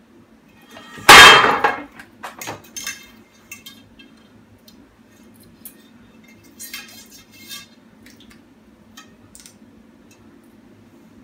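Bicycle wheel parts (rim, hub and loosely fitted spokes) clanking as the wheel is handled: one loud metallic clang about a second in that rings briefly, then a scatter of lighter clinks and rattles.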